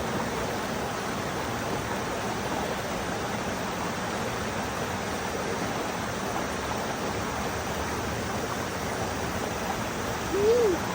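Valley stream water rushing steadily, with one short vocal sound near the end.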